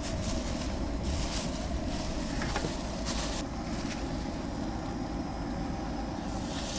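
Wind buffeting the microphone as a steady rumble, with a plastic bag crinkling in short bursts about a second in, around three seconds in and near the end as it is handled.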